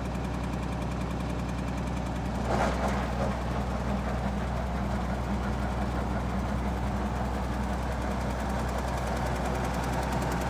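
Tractor engine running steadily, driving an Amazone ZA-M Novis 1500 fertiliser spreader with its spreading discs turning. A brief louder rush of noise comes about two and a half seconds in.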